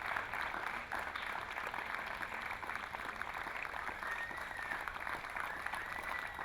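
Audience applauding steadily, a dense patter of many hands clapping. Two faint steady high tones sound briefly in the second half.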